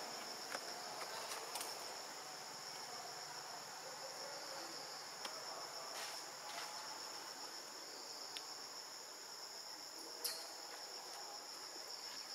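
Steady, high-pitched insect chorus in the forest, with a few faint clicks scattered through it, the sharpest about ten seconds in.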